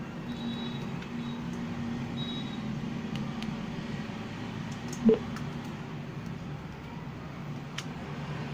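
Steady low background rumble, like traffic noise, with a few faint ticks and a single sharp knock about five seconds in.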